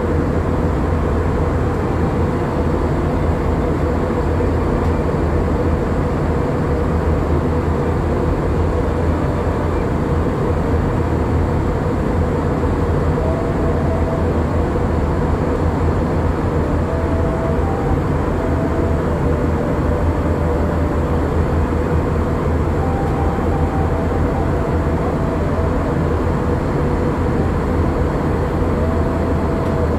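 Steady cabin noise inside a UNI Air Airbus A321-211 in flight: a deep, even rumble of airflow and its CFM56 jet engines with a constant hum running through it.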